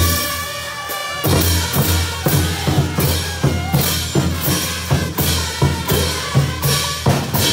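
Bolivian brass band playing caporales music: trumpets and low brass over bass drums, snare and crash hand cymbals in a steady beat. After a slightly quieter first second, the full band comes back in loud.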